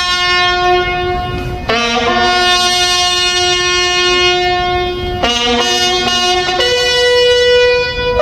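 Music of slow, long held notes with a horn-like tone, the pitch changing every couple of seconds.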